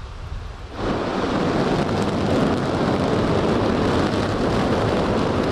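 Soyuz-2.1b rocket's kerosene-fuelled first-stage and booster engines igniting on the pad: a low rumble gives way suddenly, about a second in, to a loud, steady rushing roar of engine noise as the engines run up to thrust before liftoff.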